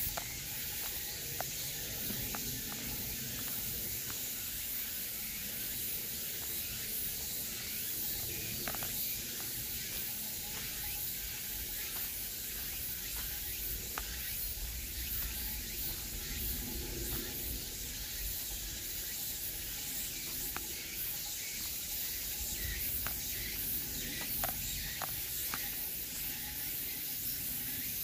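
Woodland ambience: a steady high hiss, with a few faint clicks and rustles scattered through it.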